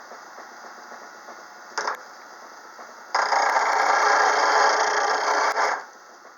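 8-inch low-speed bench grinder with white aluminum oxide wheels running, its wheel freshly dressed flat and clean. A woodturning tool touches the wheel briefly about two seconds in, then is held to it for nearly three seconds of loud, steady grinding. Near the end the running sound fades.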